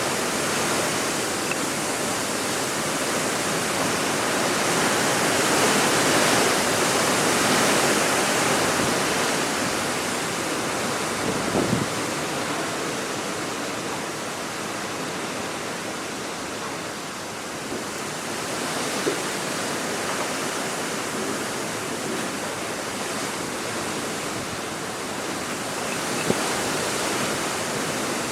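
Strong wind rushing steadily. It swells a few seconds in, eases somewhat midway, and a few faint knocks show through.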